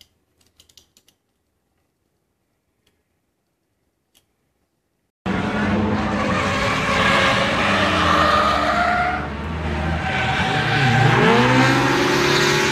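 A few faint clicks of a die-cast toy car being handled. About five seconds in, loud engines of cars drifting on a race track come in abruptly, with tyre squeal over the engine noise. Near the end the engine pitch drops and then climbs again as a driver lifts off and gets back on the throttle.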